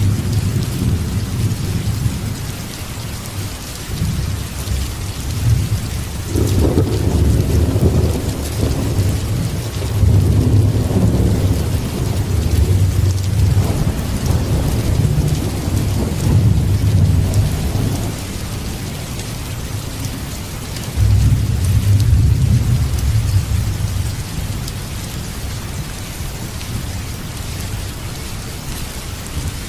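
Steady rain with rolling thunder: long low rumbles swell about six seconds in and last some twelve seconds, then a second rumble comes about twenty-one seconds in.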